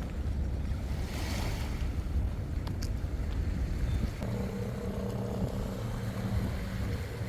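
Wind buffeting the microphone with a low rumble. About four seconds in, a steady, even-pitched mechanical drone joins it and holds to near the end.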